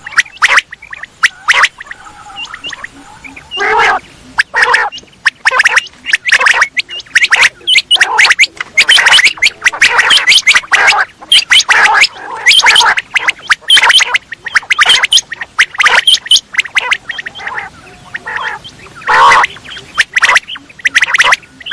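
Quail calling over and over: many short, rapid notes packed into dense bursts, with a couple of brief lulls.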